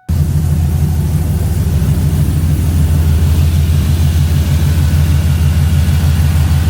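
LS V8 engine swapped into a 1988 Ford Bronco, idling steadily through its true dual stainless exhaust. It comes in suddenly at the start and holds an even, loud idle.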